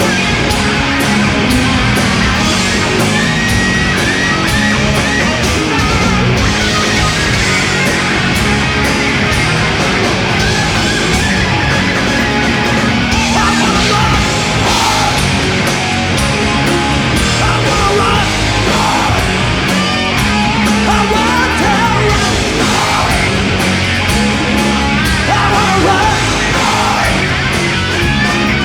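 Loud live heavy metal music with distorted electric guitar over a steady drum beat, no clear words sung.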